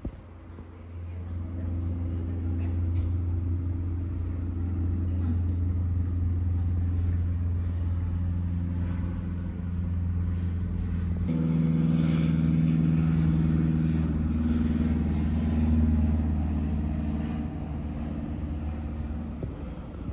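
A motor running steadily with a low hum; its pitch and tone shift about eleven seconds in.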